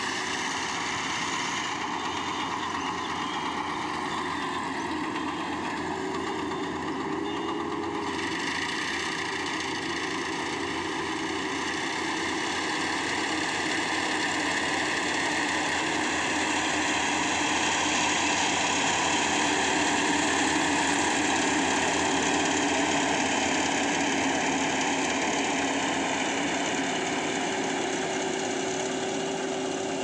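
Compact tracked FMWorld rice combine harvester running steadily with its engine and threshing machinery working as it cuts ripe rice. It grows louder in the middle of the stretch as the machine passes close, then eases off as it moves away.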